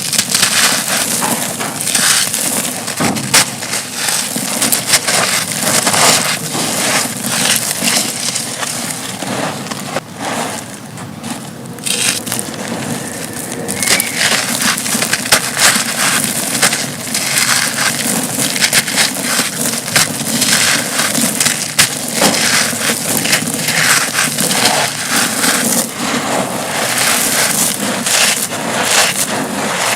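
Dry concrete chunks being crushed and crumbled, a continuous dense crunching with many sharp little cracks.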